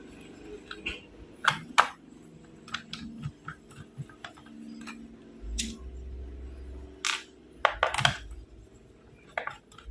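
Scattered sharp clicks and taps of a screwdriver and small screws against a laptop's plastic case as it is screwed back shut, with a low rumble for a few seconds in the second half.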